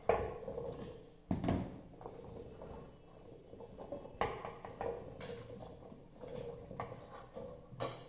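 Chopped raw papaya, colocasia and yam-stem pieces tipped from a steel plate into an empty stainless-steel pressure cooker, dropping in with scattered knocks and clatters against the steel, the loudest about a second and a half in, around four and five seconds, and near the end.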